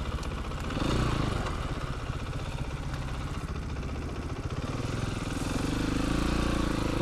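Dirt bike engine running at low speed as the bike rolls along, with a brief rise in revs about a second in and the revs climbing again near the end.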